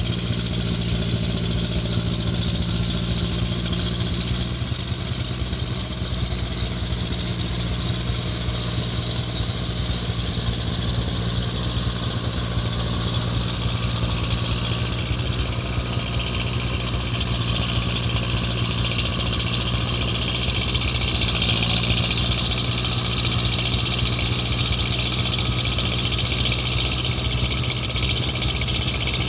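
Ford 7810 tractor's diesel engine running at a steady speed while working a flooded paddy field: an even drone with a hiss above it, a little louder about three-quarters of the way through.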